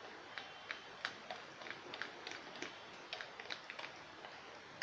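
A mixing utensil clicking and tapping against a glass bowl while thick cake batter is stirred, in quick, irregular light ticks several times a second.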